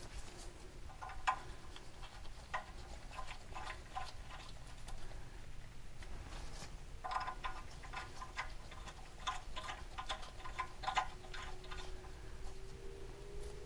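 Light, irregular metallic clicking and ticking as a steel exhaust stud is turned in by hand, threading into a helicoil insert in the exhaust manifold flange. The clicks come thickest in a run in the second half.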